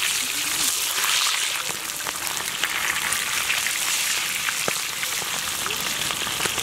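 Whole red pomfret fish deep-frying in a wide pan of gingelly (sesame) oil: a steady, loud hiss with many scattered crackling pops.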